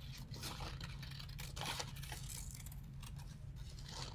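Scissors snipping through paper in a series of irregular cuts, with the sheet rustling as it is turned; a steady low hum underneath.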